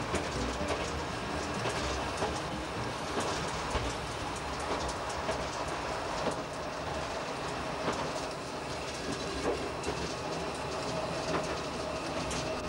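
Diesel railcar running along the track, heard from inside the driver's cab: a steady rumble with the wheels clicking over rail joints at uneven intervals.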